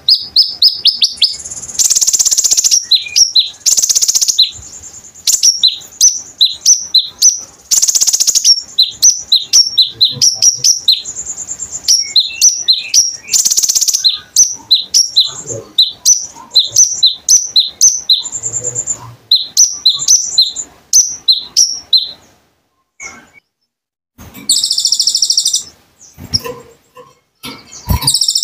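Konin songbird in full loud song: rapid runs of high, sharp chirps interrupted several times by harsh, buzzy rattling trills, with a short pause a few seconds before the end.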